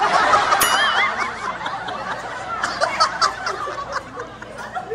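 A group of women laughing and giggling together, loudest in the first second, then tapering into lighter chuckles.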